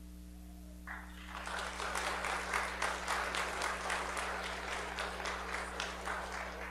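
Congregation applauding after a children's song. The applause starts about a second in and dies away near the end.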